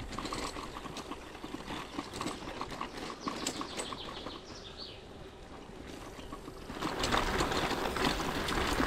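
Bicycle riding along a path, its tyres and frame rattling with irregular clicks, growing louder and rougher about seven seconds in as the tyres run onto gravel.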